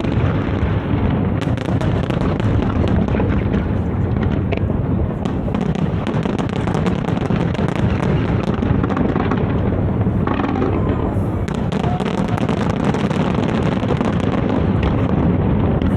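Fireworks going off in a dense, continuous barrage: many crackles and bangs packed close together over a low rumble, with no pause.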